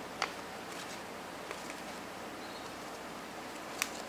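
Thin paper instruction leaflet being handled and folded by hand: a few short, sharp paper crackles, two louder ones just after the start and near the end, over a steady hiss.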